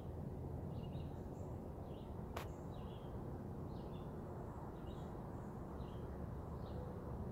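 A bird chirping over and over, about one short call a second, over a steady low outdoor rumble. A single sharp click comes about two and a half seconds in.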